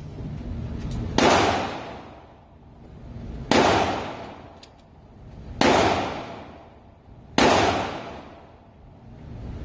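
Four handgun shots, slow and evenly paced about two seconds apart, each sharp report dying away in a long echo off the range.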